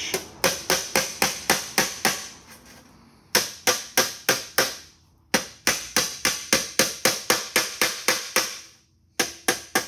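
Steel hammer tapping lightly and quickly on a 26-gauge galvanized sheet-metal corner, about four or five taps a second in several runs with short pauses, each tap ringing briefly. The taps are seating a bent-up tab inside a hemmed edge to close the tray corner.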